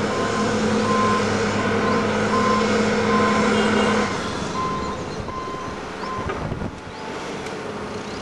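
Diesel engines of a tracked excavator loading an articulated dump truck, running hard, with a reversing alarm giving single-pitch beeps about every 0.6 s. The heavy engine note eases off about four seconds in, and the beeps stop a little later.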